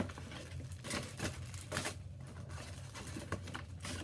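Paper shopping bag rustling as items are rummaged out of it: a string of short, irregular crinkles and taps.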